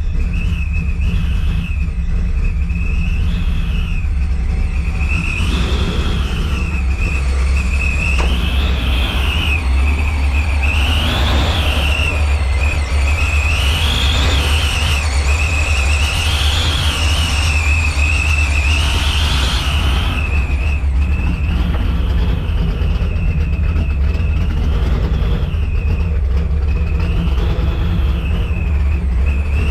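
Supercharged 427 V8 of a 1994 Ford Lightning, with a Vortech YSI centrifugal supercharger, running just after being started on a new 2.8 Griptec pulley. The throttle is blipped over and over, about every couple of seconds, strongest in the middle. A steady high supercharger whine rises and falls with each rev over a deep exhaust rumble.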